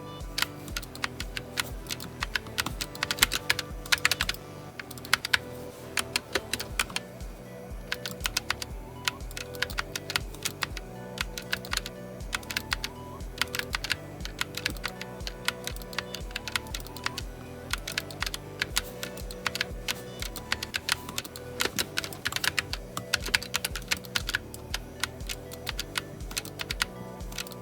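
Typing on a GK61 60% mechanical keyboard with optical switches: fast runs of key clicks in bursts with brief pauses, over background music with a steady beat.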